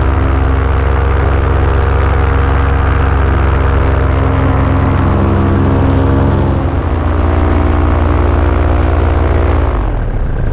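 Paramotor engine and propeller running steadily at cruise power, easing back slightly partway through, then throttled right down near the end so its pitch falls away and mostly a rush of wind remains.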